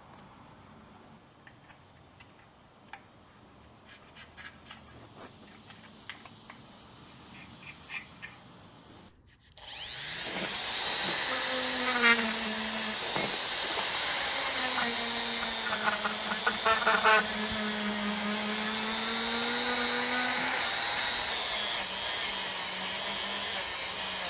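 Faint clicks and scrapes of handwork, then about ten seconds in a handheld power tool spins up and runs steadily while cleaning the dirty engine cooling-system surfaces. Its pitch sags a little under load and then recovers, with scraping against the metal.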